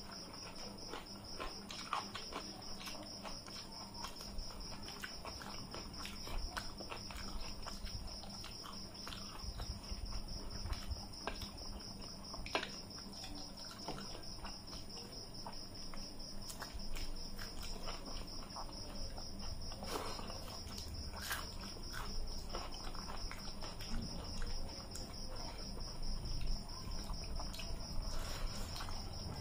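People eating rice and curry by hand: chewing and lip sounds, with soft clicks of fingers and food against steel plates. Under it runs a steady, high-pitched, evenly pulsing trill, like a cricket chirring.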